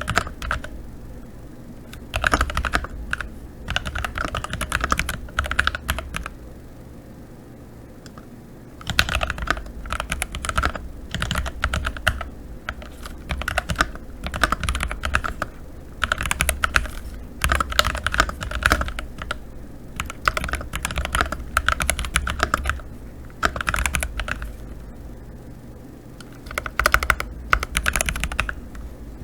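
Typing on a CIDOO ABM084 mechanical keyboard with TTC Gold Pink switches: rapid runs of keystrokes clacking in bursts, with a couple of short pauses.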